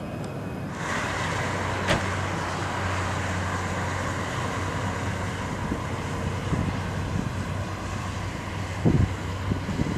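Jet noise of a Boeing 737-800's twin CFM56-7B turbofans as the airliner climbs away after take-off: a steady rushing noise. There is a sharp click about two seconds in and a few low thumps near the end.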